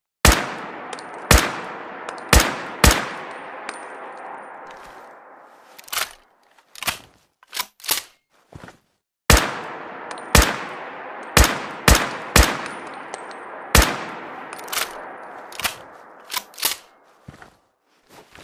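Rifle gunshot sound effect: a volley of about four shots, each with a long echoing tail, then a few short metallic clicks, then a second volley of about six shots followed by more clicks near the end.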